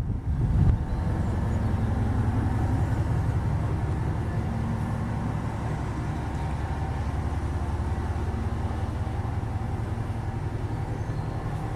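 A train running steadily, with a steady low hum.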